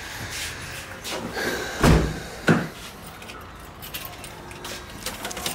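Two heavy thuds about half a second apart, a Holden Calais sedan's door being shut, among lighter clicks and handling noises as people get into the car.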